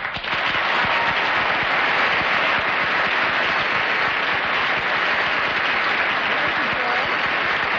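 Studio audience applauding, breaking out all at once and holding at an even level.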